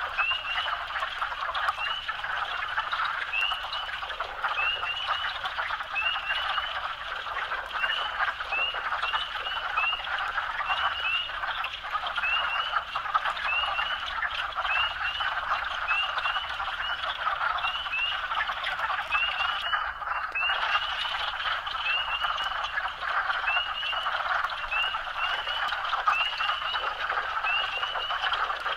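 Chorus of frogs calling together: a dense, steady din with short, sharp rising peeps repeating one to three times a second above it.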